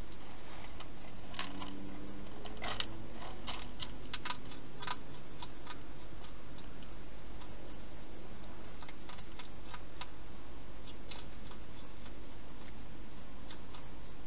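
Wild hedgehog chewing food in a plastic feeding station: irregular crunchy clicks, thickest about three to five seconds in and sparser after, over a steady hiss.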